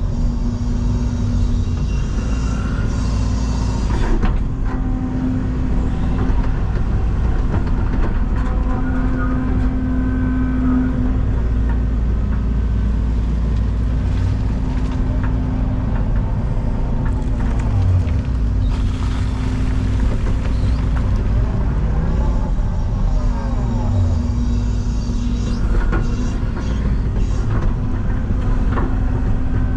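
Excavator's diesel engine running steadily under load, with a whine that rises and falls as the hydraulics work and occasional knocks from the digging.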